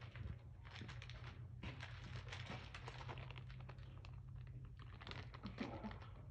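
A puppy scrabbling and playing with plush toys on a concrete floor: a quick, irregular run of small clicks and rustles as claws tap and the toys scuff, over a steady low hum.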